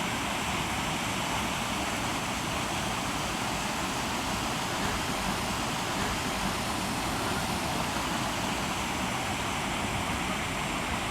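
Pistyll Rhaeadr, a tall single-drop waterfall, giving an unbroken, steady rush of falling water.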